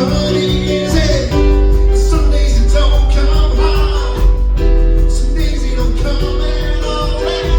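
Live band playing a song with singing, a strong bass coming in about a second and a half in.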